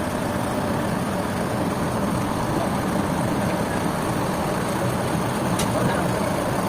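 Heavy engine running steadily, with a single sharp click about five and a half seconds in.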